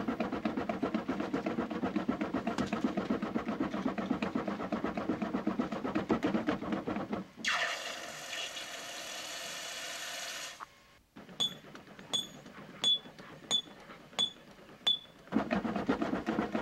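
Forge bellows pumped fast and evenly, a rapid rhythmic puffing, broken for about three seconds by a steady hiss. After that come about six ringing metal strikes, roughly two-thirds of a second apart, and then the rhythmic pumping starts again near the end.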